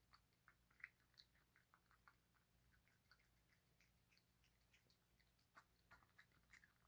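A cat eating from a bowl: faint, irregular chewing and mouth clicks, several a second.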